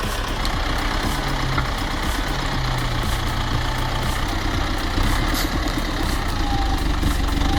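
A heavy engine running steadily under a dense mechanical din, with no break.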